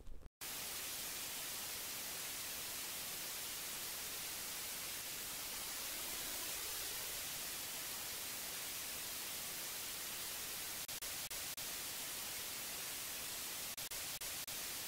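Steady hiss of white-noise static that starts and stops abruptly at edit cuts. There are a few faint clicks or dropouts in the last few seconds.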